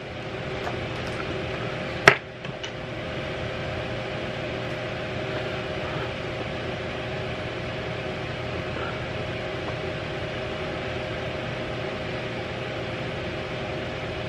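A steady mechanical hum with a hiss, from a running appliance, with one sharp click about two seconds in.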